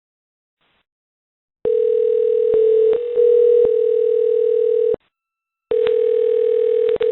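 A steady, single-pitch telephone tone over a phone line, in two stretches of about three seconds and two seconds with a short break between. It starts about a second and a half in, and a few clicks cut into it.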